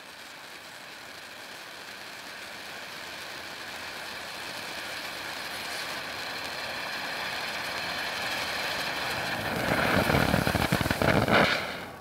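Black Cat Centrifuge firework fountain spraying sparks with a steady rushing hiss that grows gradually louder, then a loud stretch of dense crackling about ten seconds in as it finishes, fading at the end.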